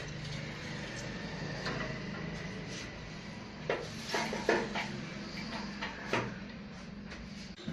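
A few short knocks and clacks, about five between four and six seconds in, over a steady low hum.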